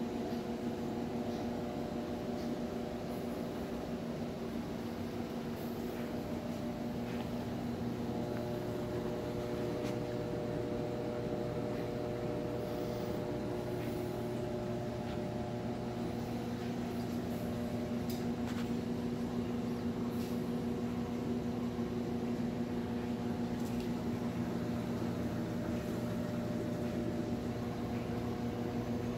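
Steady hum and whir of running reef-aquarium equipment such as the pumps, unchanging throughout.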